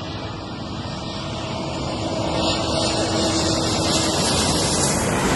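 Twin-engine jet airliner on final approach passing low overhead: a broad engine roar that grows steadily louder, peaking near the end, with a faint steady hum beneath it.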